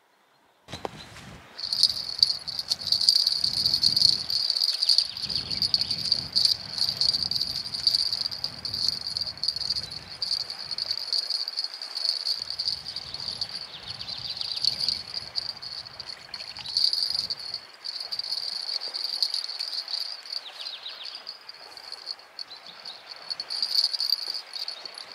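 A steady, high-pitched insect-like trill that starts about a second in and carries on unbroken, over low rumbling noise through the first half.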